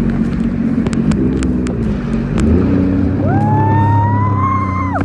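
Jet ski engine running at speed, steady, with its pitch dipping briefly about two seconds in. In the last two seconds a high whine rises in over it and cuts off sharply.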